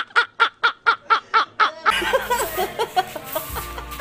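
A man laughing hard in a rapid, even run of 'ha-ha' bursts, about five a second, that cuts off abruptly about two seconds in. After that, quieter background sound with a low hum coming in near the end.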